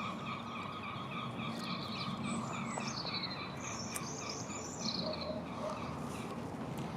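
Wild birds singing: a fast series of short repeated chirps for the first couple of seconds, then two higher phrases that fall in pitch in the middle.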